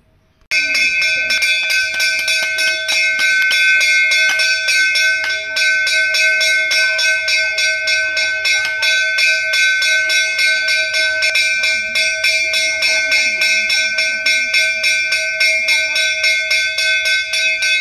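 Puja hand bell rung rapidly and continuously, several clapper strikes a second over a sustained metallic ring. It starts suddenly about half a second in.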